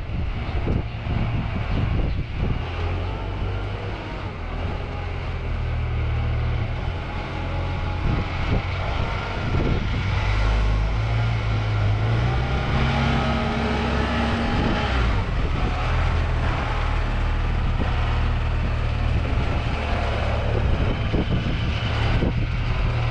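An engine running steadily, its pitch shifting a little about halfway through, with some mechanical clatter over it.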